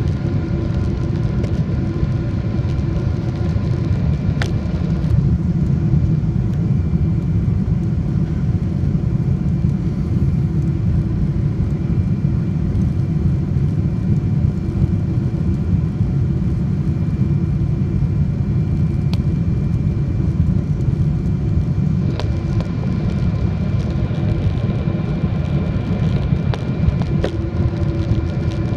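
Steady cabin noise inside a Boeing 777-300 airliner on its landing approach: a low rumble of airflow and engines with a steady hum of several tones over it. A few faint clicks sound along the way.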